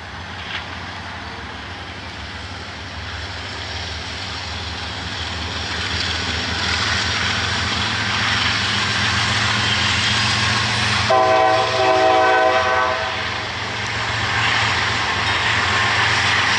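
Norfolk Southern GE AC44C6M diesel-electric locomotive passing with a steady engine drone and wheels rumbling on the rails, growing louder as it nears. About eleven seconds in a multi-note locomotive horn sounds twice, a short blast and then a longer one.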